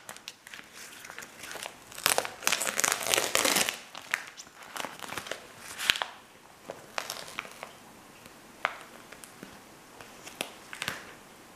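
Masking plastic sheeting and tape being peeled off a freshly painted car body, crinkling and tearing in bursts over the first few seconds, then settling into scattered small crackles as it is eased off slowly.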